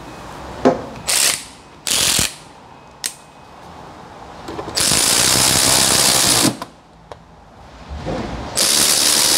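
Ratchet driving Torx T20 screws back into the wheel-well liner, in four bursts: two short ones in the first couple of seconds, a longer one of almost two seconds in the middle, and another near the end, with a couple of single clicks between.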